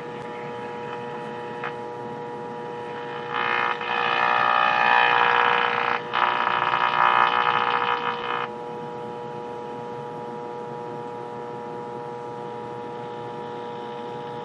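Speaker of a 1949 Majestic Model 120 television giving a steady hum, the sign of at least one failing filter capacitor on the B+ supply. From about three to eight seconds in, a horrible garbled sound comes through on top of the hum as the set picks up the station being fed in, briefly breaking off near the middle.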